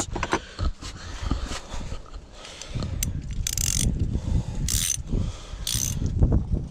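Ratcheting combination spanner being worked back and forth by hand, its pawl clicking in several short runs about a second apart.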